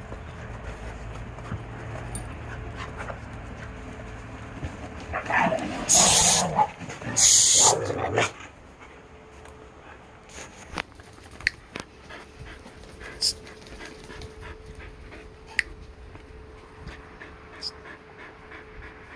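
Dogs panting, with a loud, harsh dog scuffle about six seconds in: two short bursts, one dog correcting another too forcefully. Scattered light clicks follow.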